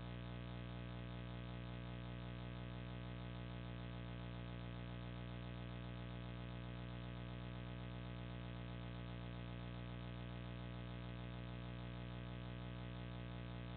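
Steady electrical hum with a stack of overtones, unchanging in pitch and loudness.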